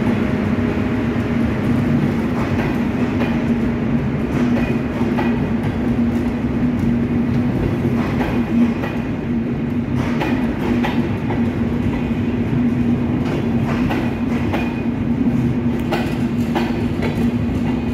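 Passenger coaches of an intercity train rolling into the station along the platform: a steady rumble with a low hum underneath, and irregular sharp clicks of the wheels over rail joints.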